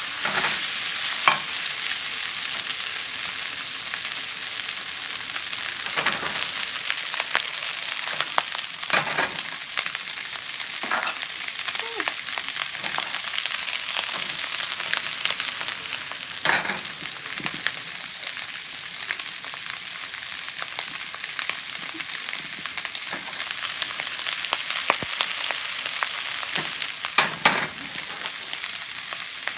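Veggie fried rice sizzling steadily in a large nonstick pan, with a plastic spatula scraping and knocking against the pan every few seconds as it is stirred.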